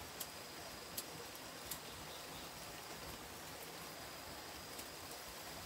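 A knife working a piece of wood by hand: a few sharp, isolated clicks and taps over a steady faint hiss, with a thin high steady tone in the background.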